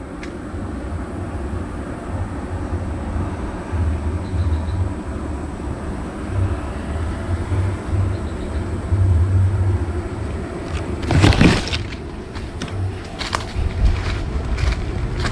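Footsteps and rustling in dry bamboo and banana leaf litter over a low rumble, with one loud crackling rustle of leaves about eleven seconds in and a few lighter crackles after it.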